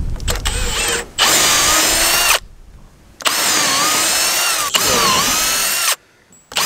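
Milwaukee M18 cordless drill with a 5 mm bit pre-drilling pilot holes in 90 by 45 timber. The motor whine runs in three spells with short stops between, and its pitch dips and recovers as the bit bites into the wood.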